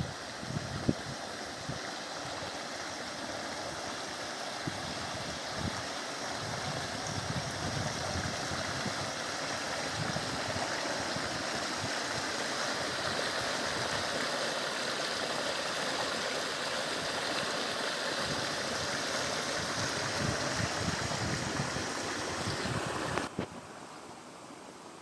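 Fast-flowing ravine stream running over rocks, a steady rushing hiss of water. About 23 seconds in it cuts abruptly to a much quieter water sound.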